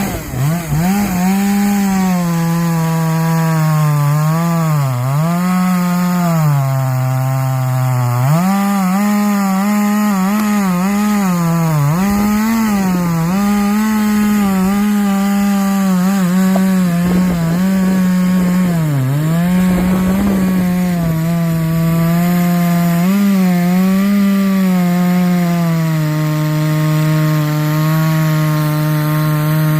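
Chainsaw cutting wood under load, the engine pitch sagging as the chain bogs in the cut and climbing back again and again. Near the end it holds a steady, lower pitch for a few seconds before rising once more.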